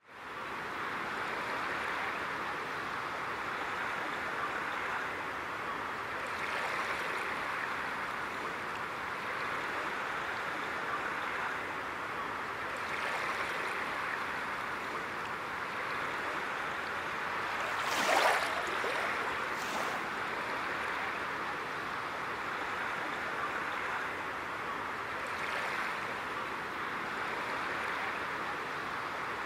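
Water washing steadily, swelling gently every few seconds, with one louder splash about two thirds of the way through.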